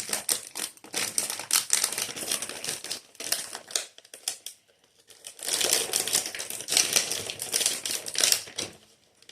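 Pastry packaging crinkling and crackling as it is handled and opened, a dense run of small clicks, with a short pause about four seconds in before the crinkling starts again.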